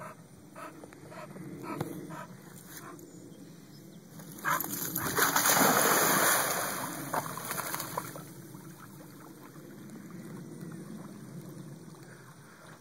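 A Staffordshire terrier gives short repeated whimpering yelps. Then a loud splashing rush comes about five seconds in as it goes into the pond water, and quieter steady water noise follows while it swims.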